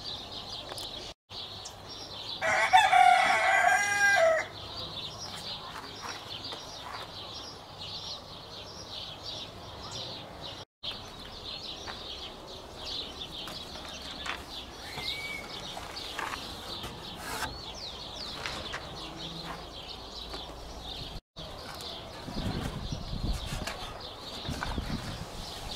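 A rooster crows once, about two seconds long, a couple of seconds in. Small birds chirp continually in the background.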